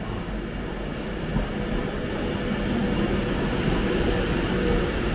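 Avanti West Coast Class 390 Pendolino electric train pulling slowly into the platform and sliding past close by. It makes a steady rumble of wheels and motors with a low hum, and grows gradually louder as the coaches pass.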